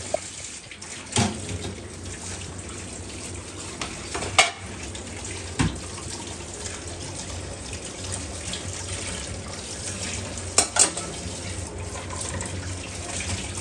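Steady rushing noise like running water, with about five sharp knocks or clinks, the last two close together near the end.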